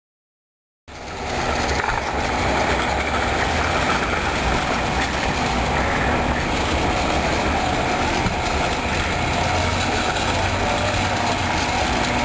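Steady outdoor background noise with a low rumble, cutting in about a second in after dead silence.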